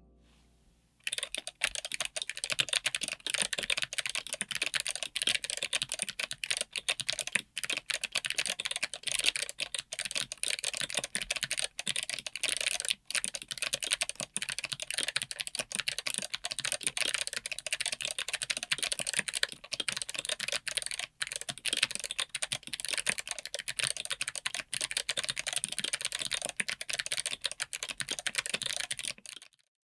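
Mechanical keyboard with Kailh BOX Midnight Jade clicky switches in polycarbonate housings, typed on fast and continuously, giving a dense stream of sharp clicks. The typing starts about a second in and stops just before the end.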